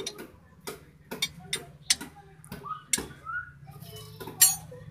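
Steel wrench clicking and clinking against the suspension's nuts and bolts as it is fitted and worked: a string of irregular sharp metallic taps, with one louder clank about four and a half seconds in.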